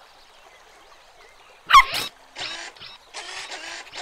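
Cartoon puppy sounds: a sudden wavering yelp about two seconds in, then a run of short breathy puffs like quick sniffs.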